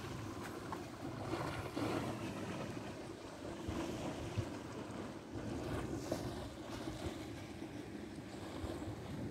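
Wind buffeting the microphone with a rumbling, uneven rush, and a few short crunching footsteps on a stony path.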